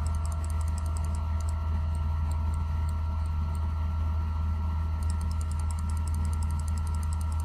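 Steady low electrical hum with a few faint steady higher tones, overlaid by faint, rapid, high-pitched ticking that stops for a few seconds in the middle and comes back near the end.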